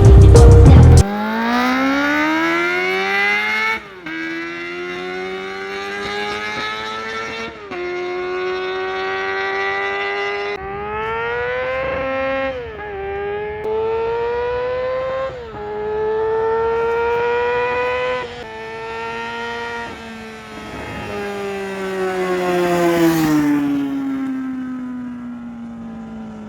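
Suzuki Bandit 250's high-revving 250cc inline-four engine accelerating through the gears. Its pitch climbs in steps, with a short dip at each upshift, several times over. Near the end a loud swell passes, and the engine note falls as the throttle is eased off.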